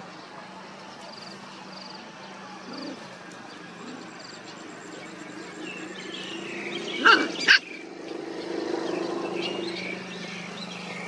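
Puppies growling and yapping as they play-fight, with two loud, sharp yelps about seven seconds in followed by a drawn-out growl. A steady low hum runs underneath.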